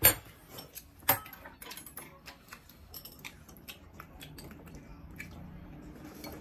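Metal chopsticks and a spoon clinking against a pan and bowls while two people eat: two sharp clinks about a second apart at the start, then lighter, irregular taps and clicks.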